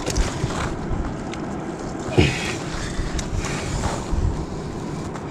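Wind buffeting the microphone over the wash of sea surf on the rocks, with a brief falling sound about two seconds in.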